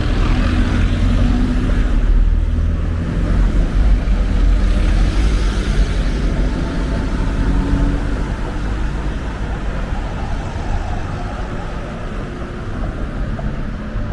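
City street traffic: a motor vehicle running close by with a low rumble and engine hum, fading over the last several seconds.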